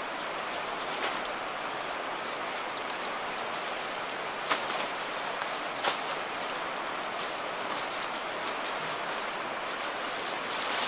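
Steady rush of a fast-flowing river, with a thin, steady high whine over it. A few short crisp rustles and snaps of a nylon tarp being unfolded and handled, the sharpest about four and a half and six seconds in.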